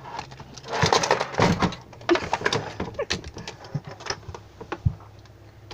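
Wooden latches and little doors of a latch board clicking and knocking as they are worked by hand: a string of irregular clicks and taps.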